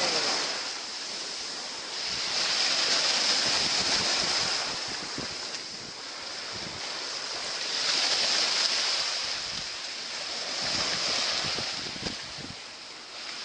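Ocean surf washing onto the beach, swelling and fading every three to four seconds, with wind buffeting the microphone.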